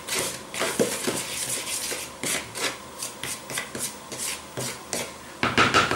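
A spoon stirring dry flour and salt in a plastic tub: repeated scraping strokes, about three a second, with a louder flurry of strokes near the end.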